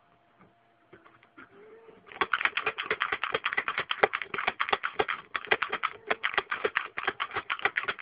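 Manual pick gun snapping its needle against the pins of a lock cylinder: a few faint clicks as it is set in place, then from about two seconds in a fast, continuous run of sharp metallic clicks as the trigger is worked to bounce the pins.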